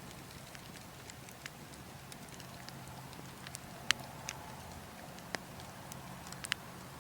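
Burning logs crackling, with irregular sharp snaps, the loudest about four seconds in and twice more near the end, over a steady low wind rumble.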